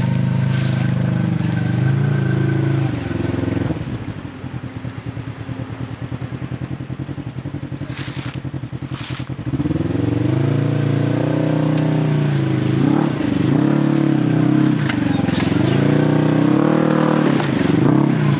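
Polaris RZR side-by-side's engine crawling up a steep rocky hill climb. It runs steadily, drops to a quieter pulsing idle for several seconds, then revs up and down repeatedly as it works up the ledges.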